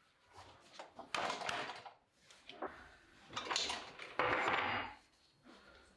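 Parts of a wood lathe being slid and set by hand, giving three short metal scrapes, the last the loudest, with the lathe not running.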